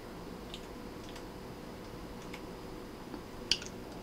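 Quiet room tone with a faint steady electrical hum, a few light ticks scattered through it, and one sharper click about three and a half seconds in.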